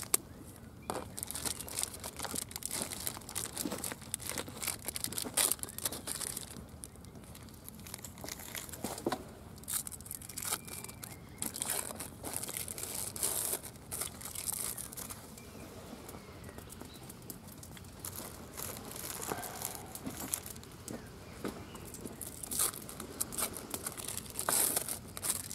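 Plastic food packaging crinkling and rustling in irregular bursts as it is handled, with scattered light clicks and knocks.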